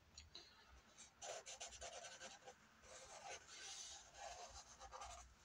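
Faint scratching of a drawing tool on paper: a quick run of short strokes about a second in, then longer strokes.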